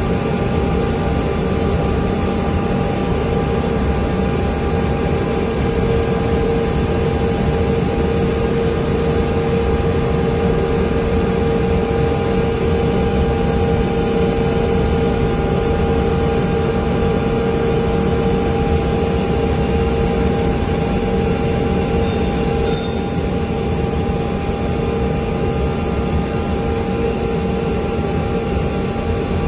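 Steady in-flight cabin drone of an Ilyushin Il-76 transport: its four turbofan engines make a constant hum with several fixed tones over a rushing noise.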